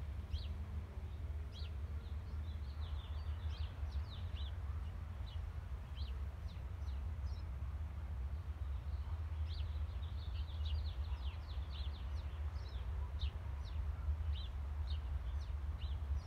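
Small birds chirping: many short, quick chirps, scattered and bunched into flurries, over a steady low rumble.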